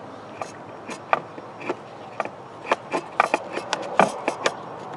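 Handling noise in a car's engine bay: a run of irregular sharp clicks, taps and light knocks of a tool, cable and metal parts being worked by hand, coming thicker from about halfway through, over a steady low hiss.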